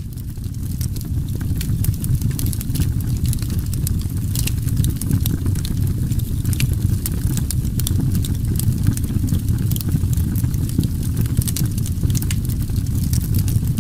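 Wood fire crackling: a steady low rumble with many sharp, irregular pops and snaps.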